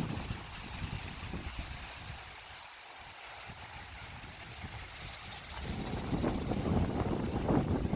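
Windstorm gusts buffeting the microphone as a low rumble, easing off about two seconds in and building back up after about five seconds.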